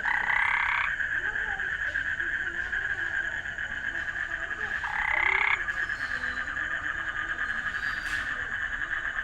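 Frogs calling: a steady high trilling chorus goes on throughout, and a louder frog call, rising slightly in pitch, sounds twice, once at the start and again about five seconds later.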